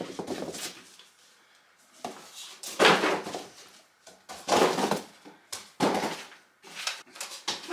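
Cardboard packaging being handled while a lamp is unboxed: a series of separate scrapes, rustles and thunks as cardboard inserts are pulled out of the box, the loudest about three seconds in and again around five seconds.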